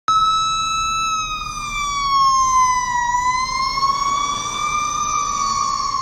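Siren sounding a slow wail that starts abruptly: one held tone that sinks, rises again and begins to sink.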